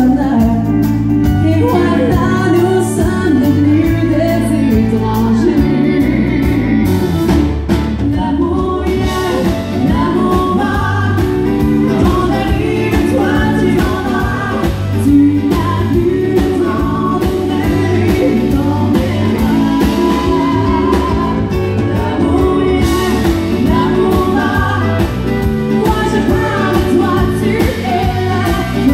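Live country music: a woman singing lead into a microphone over a full backing band, playing without a break.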